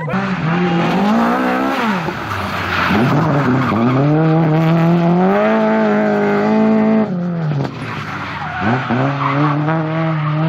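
Lada VFTS rally car's engine revving hard, its pitch climbing and falling several times as it goes through the gears, with a sudden drop about seven seconds in before it climbs again. Tyres skid as the car slides through a corner.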